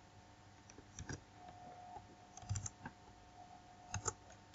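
A few faint computer-keyboard keystrokes typed in short pairs, over a faint steady hum.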